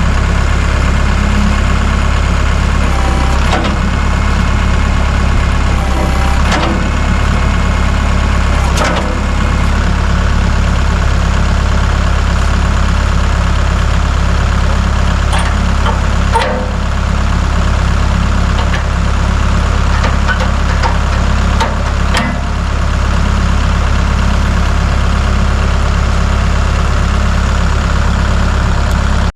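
A large engine running steadily at a low, even speed, close by, with a few sharp knocks or clanks over it, and cut off abruptly at the end.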